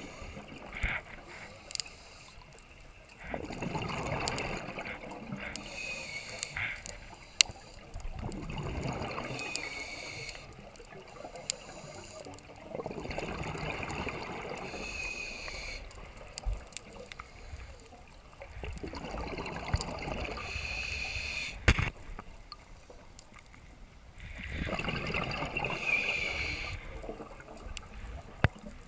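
Scuba breathing heard underwater: regulator breaths with bubbling and hissing, each lasting two to three seconds and coming about every five seconds, with scattered sharp clicks between them.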